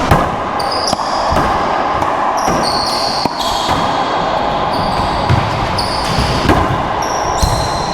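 A racquetball rally: a hollow rubber ball struck by racquets and smacking off the court's walls and floor in a string of sharp hits about a second apart, at an uneven rhythm.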